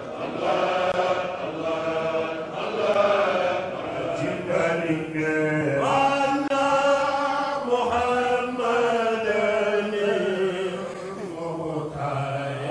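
A group of men chanting an unaccompanied Islamic devotional song through microphones, in long, drawn-out melodic lines.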